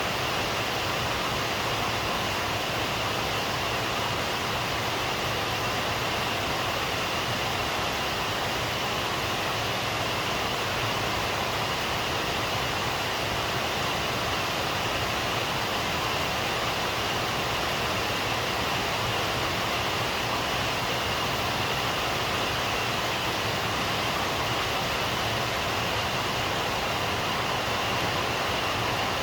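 Rain falling steadily, an even hiss with no thunderclaps or separate drop sounds standing out.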